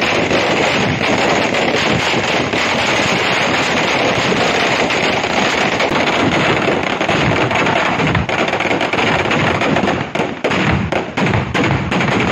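A long string of firecrackers (sara vedi) bursting in a dense, unbroken rattle of bangs. About ten seconds in it thins out into separate bangs with short gaps.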